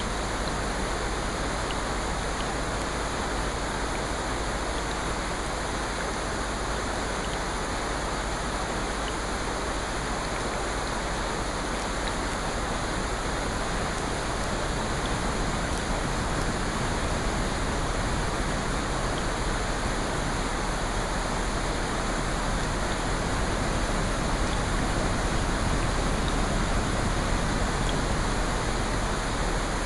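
Steady rain, an even hiss with a few faint scattered ticks, swelling slightly in the second half.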